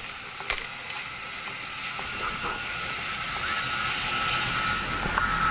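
Snowboard touching down and sliding off a chairlift unload ramp: two knocks at the start, then the scraping hiss of the board on packed snow, growing louder as it picks up speed.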